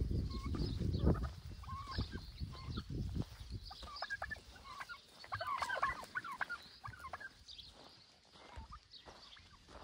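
A flock of domestic turkeys calling, with quick bursts of gobbling that are busiest in the middle and thin out toward the end. Low thumps in the first second.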